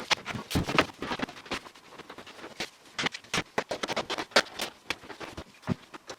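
Rapid, irregular clicks, knocks and scrapes of hand work on a car, packed closely together as in sped-up time-lapse footage.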